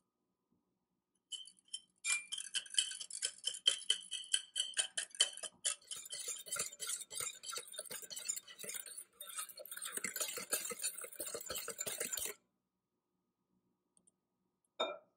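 Wire whisk beating egg and brown sugar in a glass bowl: rapid clinking of the wires against the glass. It starts about a second in, grows denser and wetter as the mixture turns liquid, and stops about twelve seconds in. A single short knock follows near the end.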